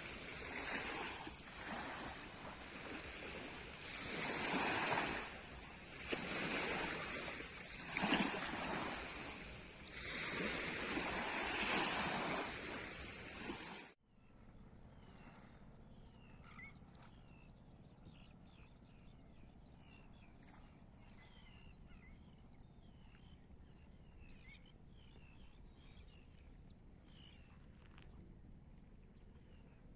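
Sea waves breaking on the shore in repeated surges, with wind on the microphone. About halfway through the sound cuts abruptly to a quieter scene of small birds chirping.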